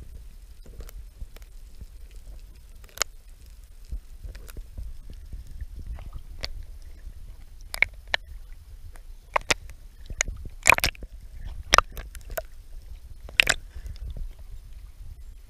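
Sea water sloshing and splashing against a camera floating half-submerged at the surface, over a steady low rumble. A run of sharp splashes and slaps comes in the second half.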